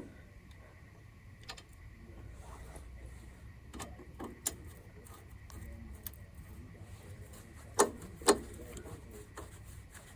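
Scattered light metallic clicks and taps from hand tools and small parts being worked on a small engine while its dipstick tube is bolted on. Two sharper knocks come close together near the end.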